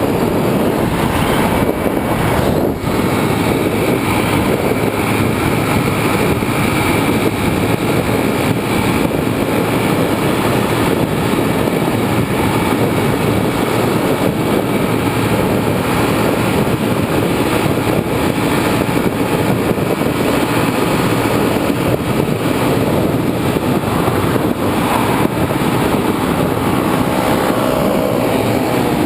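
Motorcycle riding at a steady speed: a steady rush of wind and road noise on the rider's microphone, with the engine running underneath.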